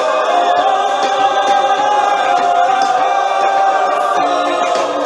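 Background music with voices singing long held notes, choir-like.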